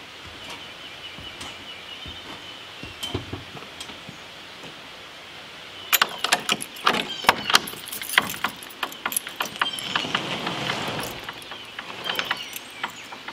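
Padlock and keys on a metal door hasp being worked open, a quick run of metal clicks and jangling rattles starting about six seconds in, followed by the wooden barn door being pulled open with a scraping rustle and a few more clicks near the end.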